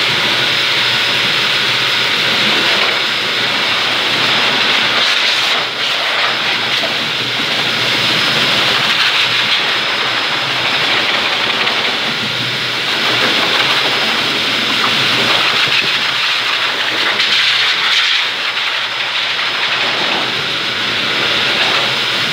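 High-velocity pet dryer (dog blaster) blowing air through its hose and nozzle onto a dog's coat: a loud, steady rushing hiss with a thin, steady high whine, rising and falling slightly as the nozzle moves.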